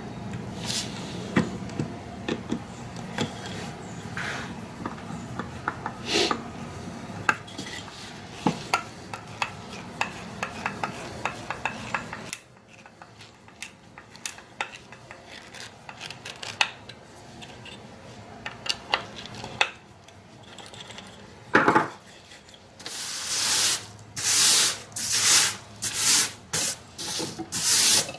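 Wooden toy parts handled and screws turned by hand in wood: scattered clicks and light rubbing. Near the end comes a run of short rasping strokes, wood scraping on wood.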